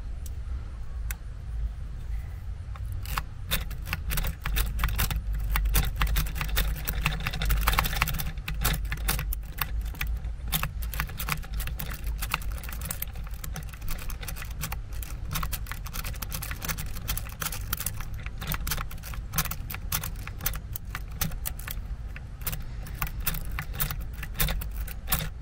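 A triple peak rake being worked in and out of a Kwikset doorknob's pin-tumbler lock: a fast, irregular run of small metallic clicks and scrapes as the pins are raked. A low rumble runs underneath, strongest around six to eight seconds in.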